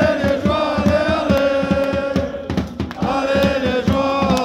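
Crowd of football supporters chanting a song together in unison, held notes sung by many voices, over a steady beat of about three or four strokes a second.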